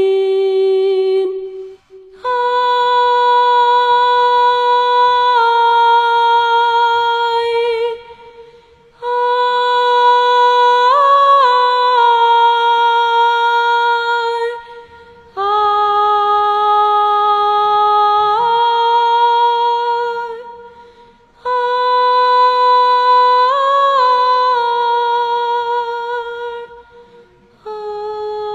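Background music: a slow melody hummed in long held notes by a high voice, in phrases of about five seconds with short pauses between them.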